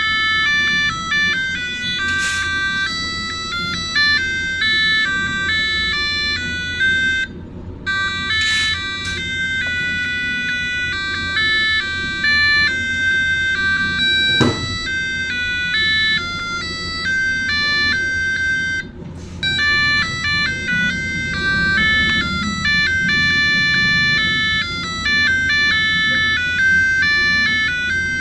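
Digital alarm clock's built-in alarm tones: simple electronic beeping melodies, breaking off briefly about a quarter of the way in and again two-thirds through as the tune changes. A single sharp click about halfway.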